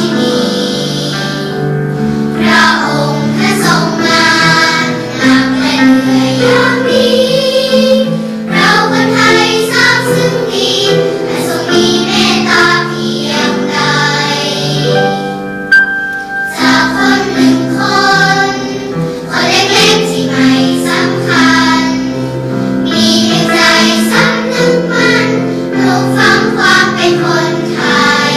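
A girls' children's choir singing a Thai patriotic song in praise of the king, in phrases with a short breath pause about halfway, over steady held low accompaniment notes.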